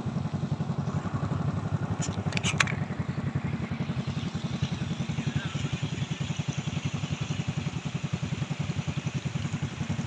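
Small motorcycle engine running steadily under way, with a couple of sharp clicks about two seconds in.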